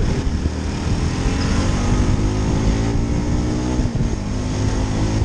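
Motorcycle engine running while riding at low speed, its revs easing down gradually, with a brief dip about four seconds in.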